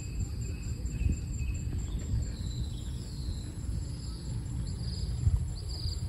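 Low, steady rumble of wind on the microphone under a faint, high insect buzz that pulses several times a second. In the second half a few short falling bird calls are heard.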